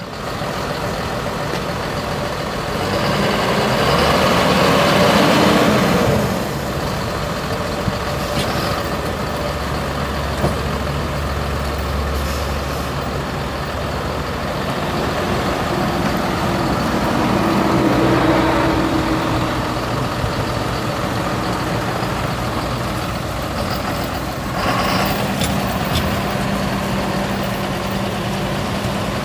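John Deere 6.8-litre six-cylinder turbo diesel engine of a 2010 John Deere 7230 tractor running steadily, its pitch and loudness shifting a few times.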